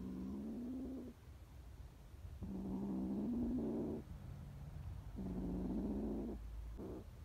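Frightened stray kitten giving long, low defensive growls: three drawn-out growls of a second or so each, then a short one near the end.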